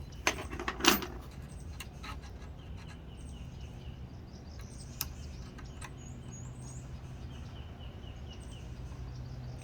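A few sharp metal clicks and a knock as a key blank is fitted into a key-cutting machine's clamp, followed by a few lighter ticks over a steady low hum. Faint bird chirps sound in the background about six to seven seconds in.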